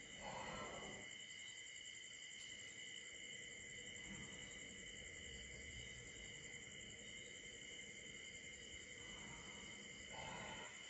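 Night chorus of crickets and other insects: a steady, high-pitched trilling. Two brief, soft rushing noises about a second long come through, one at the start and one near the end.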